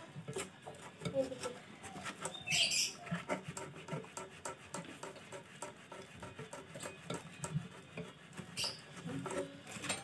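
Abrasive cloth rubbing a refrigerator's copper pipe, a run of short scratchy strokes, with a brief high squeak about two and a half seconds in.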